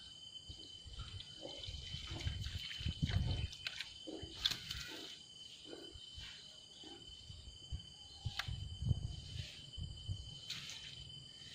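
Soft, irregular splashes and trickles of a fishing lure being retrieved across the river surface, with scattered faint clicks and a steady faint high tone.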